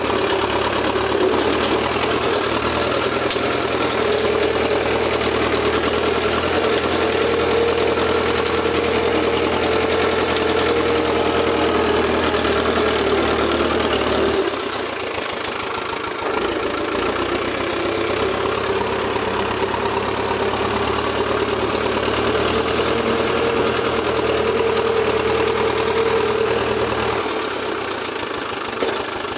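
An old Valmet 86 ID tractor's diesel engine runs steadily at low throttle, pushing a front blade through brush. The engine note drops briefly about halfway through, then steadies again.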